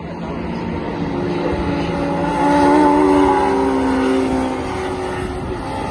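Classic Mini race car's engine running at high revs as it drives past on the circuit, growing louder to a peak about halfway through and then easing off a little.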